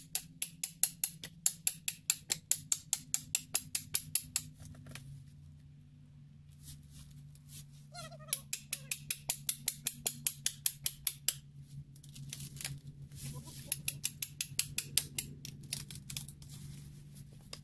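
Hand saw cutting through wood in quick back-and-forth strokes, about four a second, in three bouts with short pauses between.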